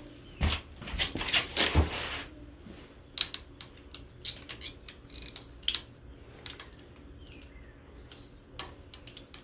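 Hand tools and metal engine parts clinking and rattling as an ATV engine's top end is reassembled: a quick flurry of clatter in the first two seconds, then scattered single clinks.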